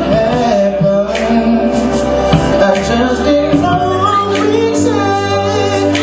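A song performed live: a singer holding long, gliding notes over instrumental backing with a steady beat.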